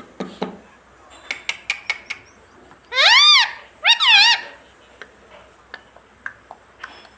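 Ringneck parrot giving two loud squawks about three and four seconds in, each rising and then falling in pitch, the second with a double hump. A quick run of light clicks comes before them.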